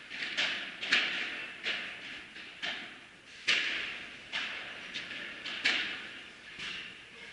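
Padel rally: sharp pops of the ball struck by padel rackets and bouncing on the court, roughly once a second at an uneven pace, each followed by echo in a large hall. The loudest come about a second, three and a half seconds and five and a half seconds in.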